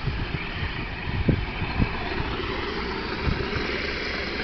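Remote-control drift cars running on asphalt: a steady hissing motor-and-tyre noise, with irregular low thumps on the microphone.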